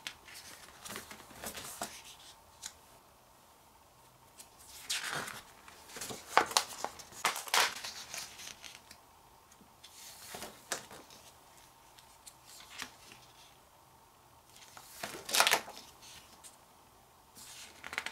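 Paper pages of a photobook being turned and handled: several brief swishes and rustles with quiet gaps between, the loudest a little past five seconds in and around fifteen seconds in.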